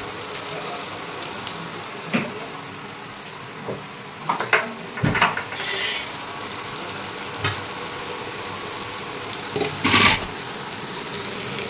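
Sliced onions sizzling as they fry in oil in a nonstick pan, with scrapes and clinks of a steel spatula stirring them; the loudest clatter comes about ten seconds in.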